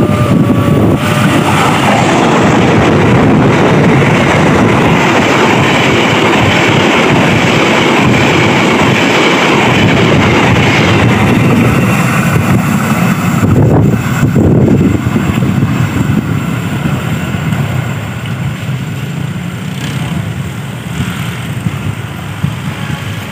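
Passenger train passing close by: a loud, steady rush and rumble of the carriages on the track, easing off over the last several seconds as the train moves away.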